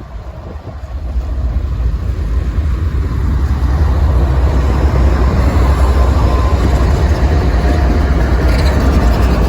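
Diesel locomotives of a Norfolk Southern intermodal train pulling out of the yard: a heavy low rumble that grows louder over the first few seconds, then holds steady.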